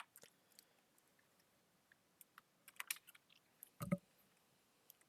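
Faint, scattered small clicks and taps, with one louder knock just before four seconds in.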